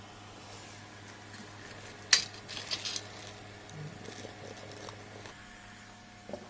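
Small metal screws clinking and clicking against the steel computer case as they are started by hand to secure the power supply: one sharp click about two seconds in, then a few lighter clinks.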